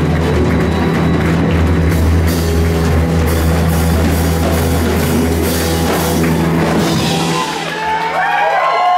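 A rock band playing live, with drum kit, bass and electric guitar, recorded from far back in the crowd. About seven and a half seconds in, the bass and drums drop out, leaving wavering, gliding high tones.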